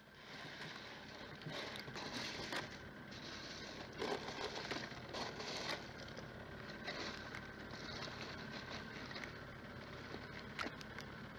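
Crushed ice scraping and crackling in a plastic cooler as fish are handled, in irregular flurries with a few sharp knocks, over a steady background rush.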